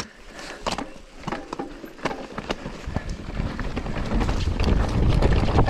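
Mountain bike riding downhill over rough ground, with scattered clicks and rattles from the bike. Wind noise on the microphone builds up from about three seconds in as the speed rises.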